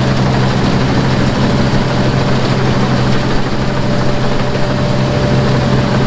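8060 rice combine harvester running steadily while cutting lodged paddy, its engine a steady low drone heard close up from the operator's seat. A faint high whine joins about a second and a half in.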